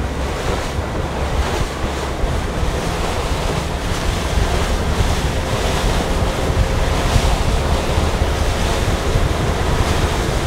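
Boat under way with wind buffeting the microphone and water rushing past the hull of a center-console boat, its outboard engine running underneath, as it speeds up from about 10 to 15 miles an hour. The noise is steady and grows slightly louder.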